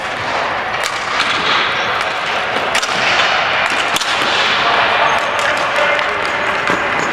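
Ball hockey play: several sharp cracks of sticks, ball and boards being struck, over steady background noise.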